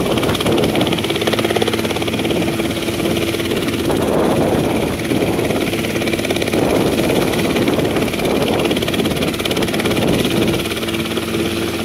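Robinson R22 helicopter hovering just above the ground, its piston engine and two-blade rotor running with a steady hum under a rushing noise that swells through the middle seconds.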